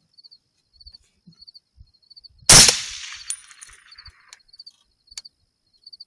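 A single rifle shot fired at a coyote about two and a half seconds in, its report trailing off over about a second and a half, with a couple of faint clicks after it. A chirping insect repeats short high chirps at an even pace throughout.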